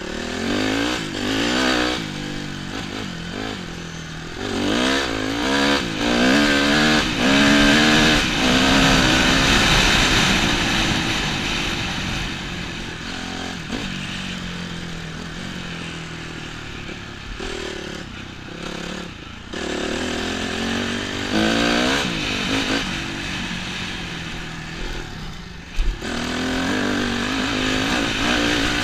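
Dirt bike engine heard on board from the rider's helmet, revving up and down as the bike accelerates and shifts across the field. It is loudest several seconds in, eases off in the middle and picks up again near the end.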